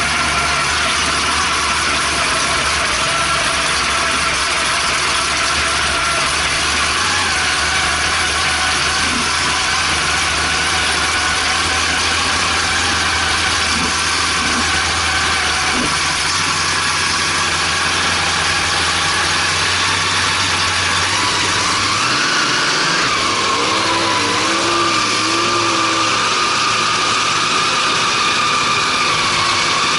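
Race boat's engine running steadily at low speed under a constant hiss, heard from on board; its note shifts about a quarter of the way in and rises and wavers about three-quarters of the way through as the throttle changes.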